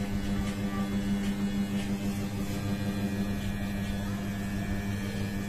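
Electric hair clipper buzzing steadily as it cuts short hair along the side of the head.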